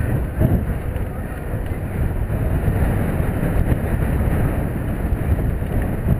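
Wind buffeting the microphone on a moving bicycle, a steady low rumble with no distinct events.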